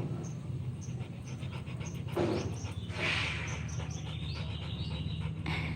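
A dog panting, with two louder breaths about two and three seconds in.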